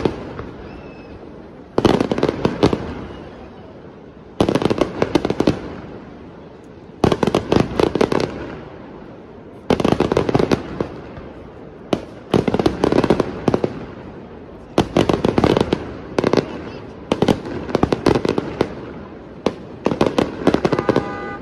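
Aerial firework shells bursting in salvos about every two and a half seconds, each salvo a quick cluster of sharp bangs and crackles lasting about a second, the sound dying away between them.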